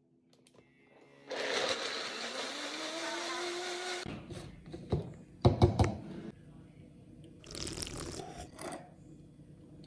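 Personal bullet-style blender running for about three seconds on a smoothie with frozen bananas and blueberries, its motor pitch rising as it spins up, then cutting off suddenly. A few loud knocks and clunks follow as the cup is handled, and then a soft slurp through a straw near the end.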